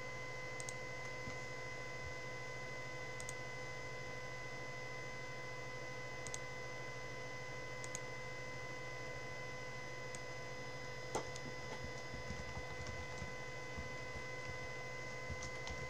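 Steady electrical hum and whine at several even pitches, with a handful of faint clicks, the clearest a little past the middle.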